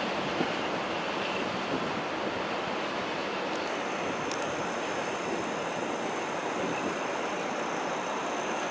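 Steady rush of wind and rolling rail noise, heard from the open door of a moving passenger train. A faint high whine joins in about three and a half seconds in.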